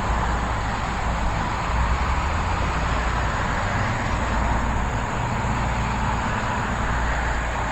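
Wind buffeting the microphone in gusty conditions: a steady rushing hiss over a low rumble that swells and dips.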